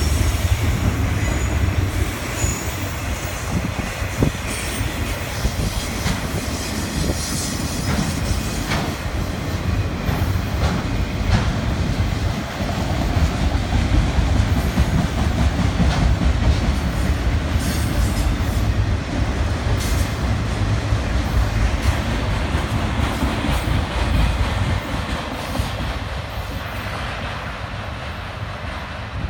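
CSX freight train of autorack cars rolling past: a steady rumble of steel wheels on the rails with scattered sharp clanks. The sound eases off over the last few seconds as the end of the train moves away.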